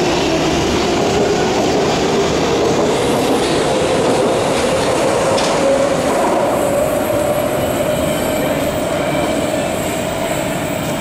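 Prague metro train (81-71M) pulling out of the station: a steadily rising electric motor whine over the rumble and clatter of wheels on rail, easing off slightly near the end.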